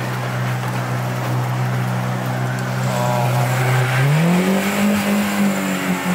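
Mercury outboard jet motor running hard under load, then revving higher about four seconds in as the boat pushes against the shelf ice it is stuck in.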